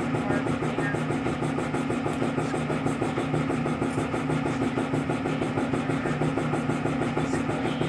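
A motor running steadily, a low hum with a fast, even pulsing that does not change.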